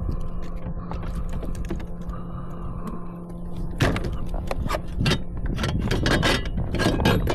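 A steady low hum, then from about four seconds in a dense run of sharp clicks and rattles, as of fishing gear and a fish being handled in a kayak.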